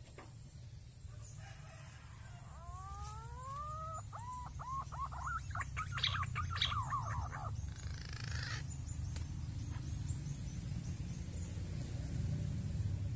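A bird calling: two rising whistled notes, then a quickening run of short clipped notes that stops about halfway through. A steady low rumble runs underneath.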